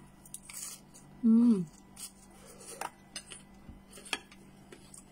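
Close-up eating sounds: a mouthful of fresh vegetable salad being chewed, with scattered crisp clicks and crunches. About a second in comes a short, loud hummed "mm" that falls in pitch.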